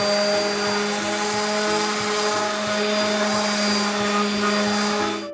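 Electric random orbital sander running while sanding a cedar plank: a steady whir with a low hum, cutting off abruptly at the end.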